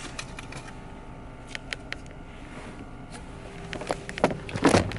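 Handling noise inside a car: a few light clicks about a second and a half in, then louder rustles and knocks near the end.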